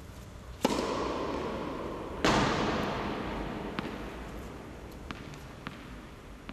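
Two loud bangs about a second and a half apart, each dying away slowly in a long echo, followed by three faint sharp knocks.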